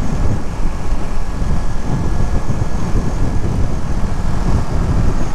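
Ducati Monster motorcycle cruising at highway speed: a steady, loud mix of engine, wind and road noise with no change in pitch.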